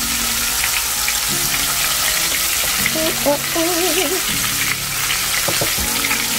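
Battered oyster mushrooms deep-frying in hot oil in a cast-iron pot: a steady, dense crackling sizzle.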